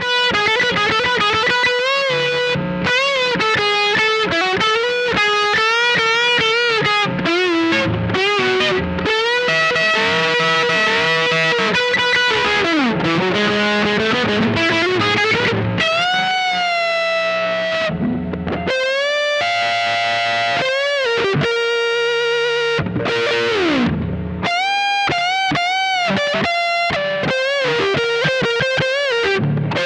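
Electric guitar lead through overdrive, played on the bridge pickup of a Squier Paranormal Offset Telecaster: continuous single-note lines with string bends and wide vibrato on held notes. The dirt comes from a Bookworm Effects Diving Belles pedal.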